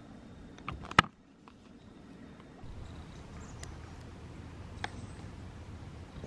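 A single sharp knock about a second in, preceded by a softer one, then a steady low outdoor rumble with a few faint clicks.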